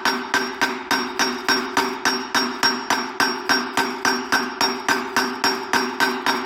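A hammer striking a 27 mm socket in rapid, even blows, about four a second, driving a new wheel bearing into a dirt bike's wheel hub. Each blow rings with a metallic tone.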